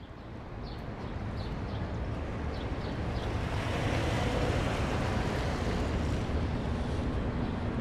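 Car driving on a rain-soaked road: a steady hiss of tyres on wet pavement over a low rumble, swelling over the first few seconds and then holding.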